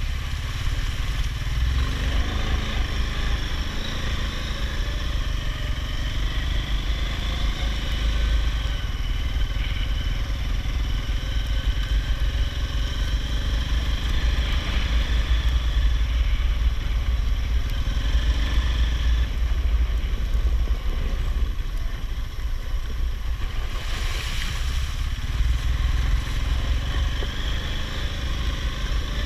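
All-terrain vehicle engine running under way. Its pitch rises and falls with the throttle over a heavy low rumble.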